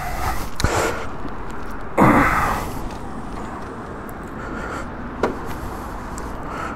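BMW R 1300 GS Adventure's boxer twin being started about two seconds in: a sudden burst as it catches, which falls back within about half a second to a quieter steady run, with a couple of small clicks from the controls.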